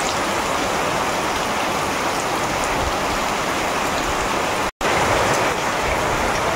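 Heavy monsoon rain pouring steadily, a dense even hiss, with a split-second gap in the sound about three-quarters of the way through.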